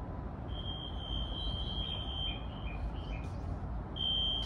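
High-pitched electronic departure warning tones over the steady hum of a stopped E131-series electric train: a long beep lasting nearly two seconds, three short lower beeps, then another long beep starting near the end. They signal that the train is about to leave.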